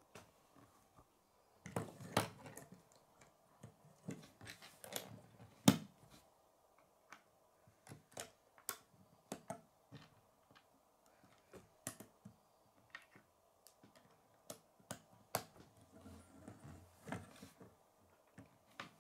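Plastic K'nex rods, connectors and gears clicking and knocking against each other and the wooden tabletop as they are handled and snapped together, in irregular clicks with one louder knock about six seconds in.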